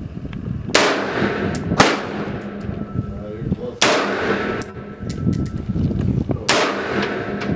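AR-15 rifle firing four single shots at irregular intervals, each a sharp crack with a short ringing tail, with fainter sharp clicks in between.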